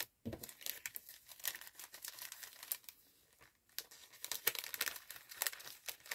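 Clear plastic treat bag crinkling and crackling in the hands as a paper embellishment is pushed into it. It quietens about three seconds in, then crinkles more busily again.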